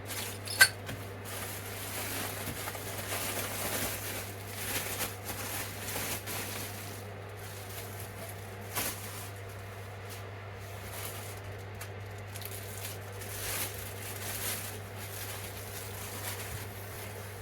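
Rustling and handling of packaging while parts are lifted out of a cardboard box, with a few light clicks and knocks, over a steady low hum.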